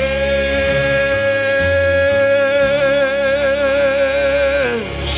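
A gospel song sung live: a solo voice holds one long high note with a vibrato that grows wider, then slides down near the end, over sustained instrumental accompaniment.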